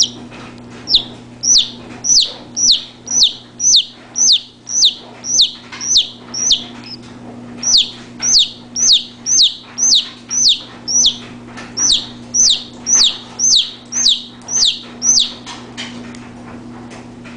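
Domestic chicken chick peeping loudly over and over, about two falling peeps a second, with a short break about seven seconds in, stopping about fifteen seconds in. A steady low hum runs underneath.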